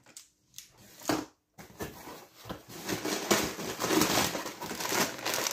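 Plastic packaging rustling and crinkling as items are rummaged through and a crisp snack bag is pulled out. It builds from about two seconds in and turns busy and dense.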